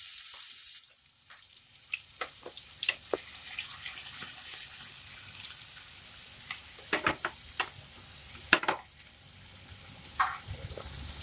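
Chopped onion going into hot mustard oil with cumin and garlic: a loud sizzle as it hits the oil, dropping for a moment, then a steady frying sizzle. Scattered clicks and scrapes of stirring in the pan run through it.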